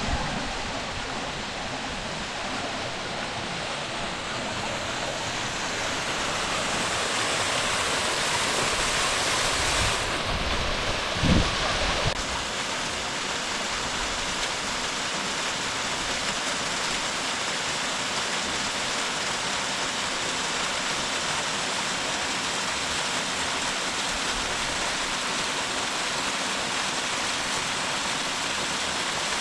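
Fast-flowing water of a river or cascade rushing and splashing steadily. There is a brief low thump about 11 seconds in.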